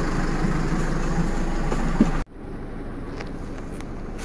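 Steady engine rumble and cabin noise inside a coach bus. It drops suddenly to a quieter level about two seconds in.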